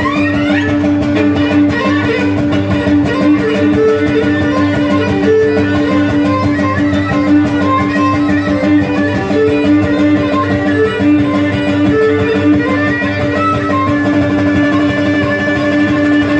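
Cretan syrtos dance tune played live without singing: a bowed Cretan lyra carries the melody over strummed laouto and a cajón beat. A steady held tone runs under the melody throughout.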